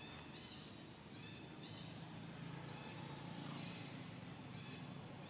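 Quiet forest ambience: a short high-pitched call repeating about every half-second to second, over a faint low engine drone that grows stronger in the middle.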